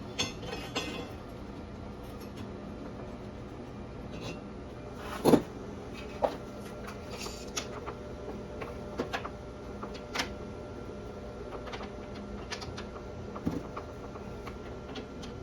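Scattered clicks and knocks from handling metal welding gear and workpieces, with one louder knock about five seconds in, over a faint steady hum.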